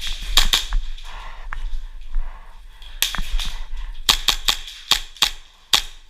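Airsoft guns firing: a series of sharp cracks, a couple near the start, a cluster about three seconds in, then a quicker run of single shots from about four seconds.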